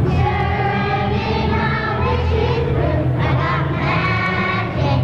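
A choir of young children singing a song together, holding sung notes.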